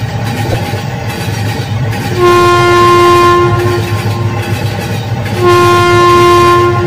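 Toy steam locomotive running along its track with a steady motor-and-wheel noise. Its horn sounds twice, each a steady tone of about a second and a half, the second coming about three seconds after the first.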